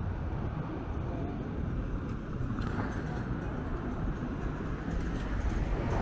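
Steady low rumble of outdoor street ambience, even throughout, with no distinct events standing out.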